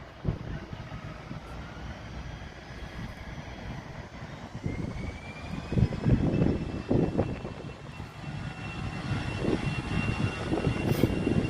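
Airliner's engines running, with a high whine that climbs in pitch and then holds steady, over an uneven low rumble that swells and fades.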